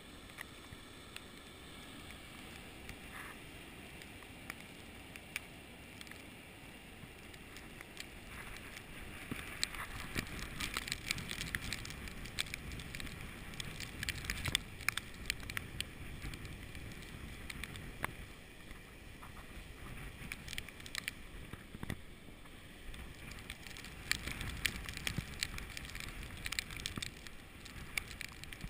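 Snowstorm wind blowing over the microphone, with many irregular crackling ticks that grow louder and denser about nine seconds in.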